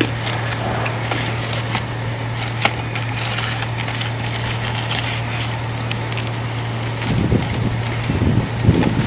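Rustling and crackling of takeout paper and crispy fried food as hands pick through a Popeyes box, with many small sharp crackles in the first half. A steady low hum runs underneath, and soft low thuds come in near the end.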